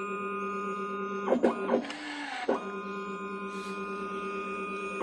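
Automatic paint-tinting machine dispensing colorant: a steady electric whir at a held pitch, interrupted for about a second with a few clicks a little over a second in, then running again until it cuts off abruptly near the end.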